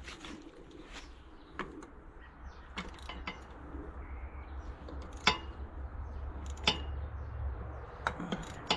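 Hand tools working on the tractor's air-cleaner bolts: scattered sharp metallic clicks and clinks of a ratchet wrench and socket on metal, a few with a brief ring, over a low steady hum.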